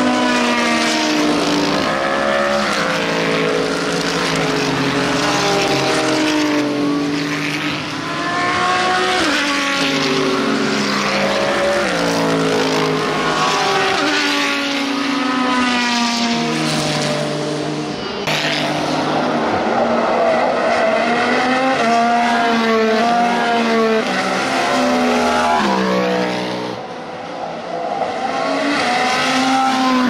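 Several IMSA GT and prototype race cars' engines passing one after another through a corner. Their overlapping engine notes keep rising and falling in pitch.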